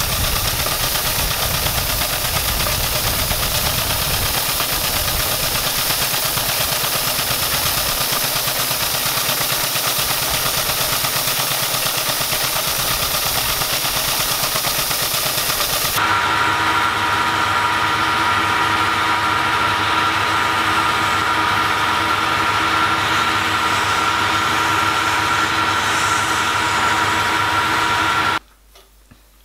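3-inch scale Allchin traction engine running under steam, a loud steady hiss. About halfway through it changes abruptly to a steadier sound with a few held tones, then drops to a low level shortly before the end.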